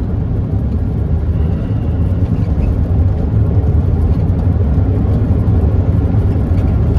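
Steady low rumble of road and engine noise inside the cab of a moving vehicle at cruising speed.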